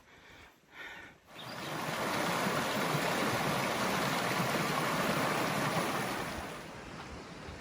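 River water rushing over rocks, a steady noisy rush that swells in about a second in and eases off near the end.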